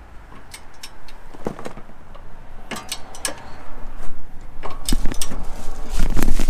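Scattered clicks and metallic clinks from a torque wrench being worked on the castle nut of a tie rod end. The clinks grow louder, with heavier knocks near the end.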